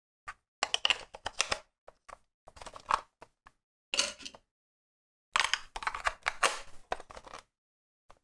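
Batteries being pushed into the open battery compartment of a hard plastic DX Genesis Driver toy belt: clusters of sharp plastic clicks and rattles, with pauses between them.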